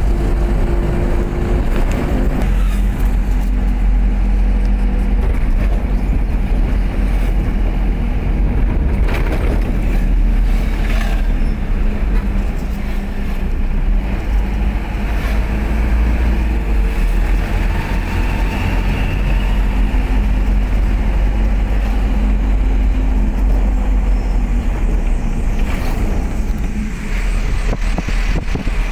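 Steady engine and road noise from a vehicle driving along a road, with a strong deep rumble.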